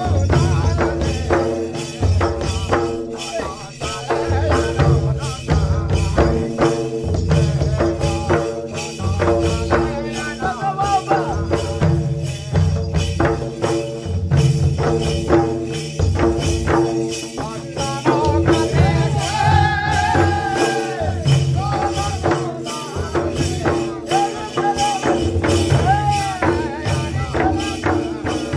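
Kathi Nacha stick-dance music: hand-beaten folk drums and clacking wooden dance sticks in a fast, dense rhythm over a steady droning tone, with a melody line rising above it about two-thirds of the way through.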